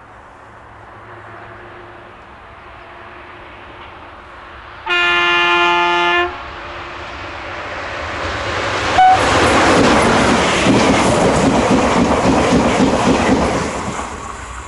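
Electric passenger train: the locomotive sounds its two-tone horn once for about a second and a half, then the train runs close by, its wheels clattering over the rail joints and points, building up and staying loud for several seconds before fading near the end.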